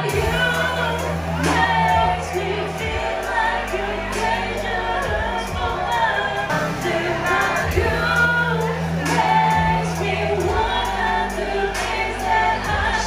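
A woman singing karaoke into a microphone over a backing track with held, changing bass notes.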